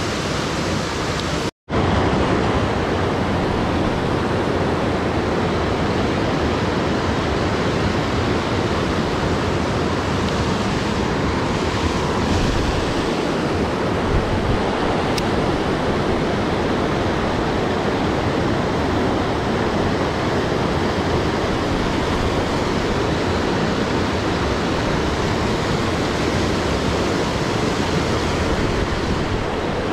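Mountain creek water rushing steadily, a constant even hiss; the sound cuts out for an instant near the start.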